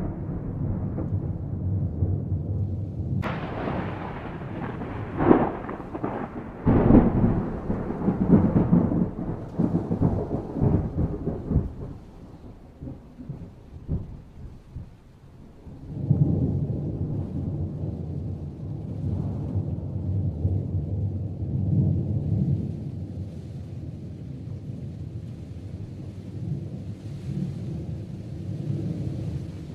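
Thunder rolling in a night thunderstorm. A sudden sharp crack about three seconds in is followed by several loud peaks of rumbling that fade out around twelve seconds. A second long low rumble starts about halfway through and continues.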